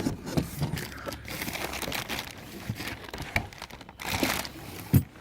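Packaging crinkling and rustling as parts are unwrapped and handled, with scattered clicks and a sharp knock near the end.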